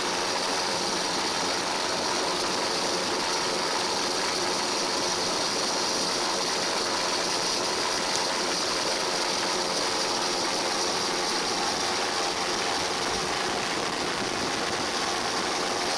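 Steady engine-like drone with a constant hum and hiss, unchanging throughout.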